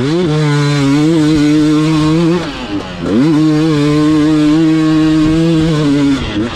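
KTM two-stroke enduro bike's engine revving hard under acceleration. Its pitch climbs quickly and holds high, dips as the throttle is rolled off about two and a half seconds in, then climbs and holds high again, dropping once more near the end.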